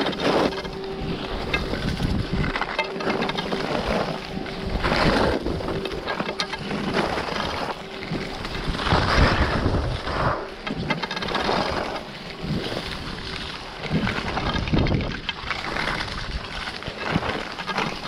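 Skis sliding and scraping on packed snow while carving down a groomed slope, the hiss swelling with each turn. Wind rumbles steadily on the microphone, and a faint steady hum runs through the first half.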